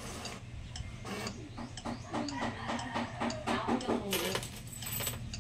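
Bill acceptor of a cash-in vending kiosk running as its motor draws in and takes a banknote, with short whirring and clicking bursts.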